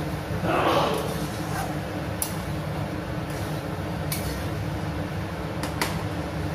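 Spatula stirring noodles in a metal kadai, scraping and giving a few sharp clinks against the pan's side, over a steady low hum.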